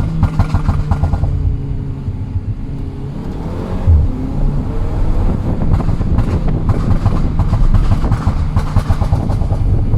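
Tuned Audi TT Mk2's 2.0 TFSI turbocharged four-cylinder engine and exhaust popping and crackling. A single loud bang comes about four seconds in. The engine then rises again with rapid crackles.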